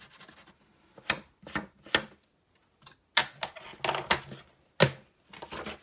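Ink blending tool being tapped on an ink pad and dabbed along the edges of paper to distress them with ink: a string of irregular sharp taps.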